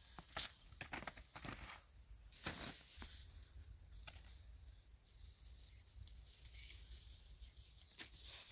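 Faint rustling and crackling of oleaster branches, leaves and twigs as the fruit is picked by hand, in a quick run of small clicks during the first three seconds; after that only a faint outdoor hush.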